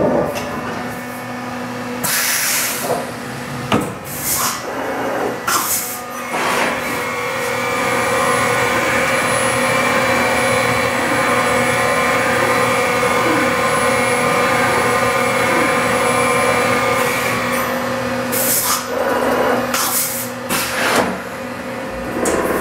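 Fanuc RoboDrill T14iA vertical machining center running: its spindle whine holds steady, louder for several seconds in the middle, with several short hisses of air a few seconds in and again near the end.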